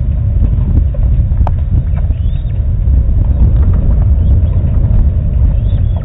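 Wind rumbling steadily on the microphone, a dense low buffeting. Over it come a few faint, high, arching bird chirps, about two seconds in and again near the end, and a single sharp tick about a second and a half in.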